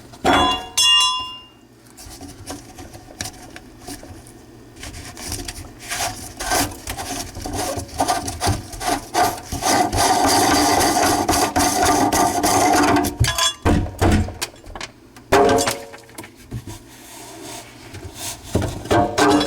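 Scraping, rubbing and knocking of hand work on an old garbage disposal's sink fittings as it is taken out, with a steady harsh scrape for about three seconds past the middle.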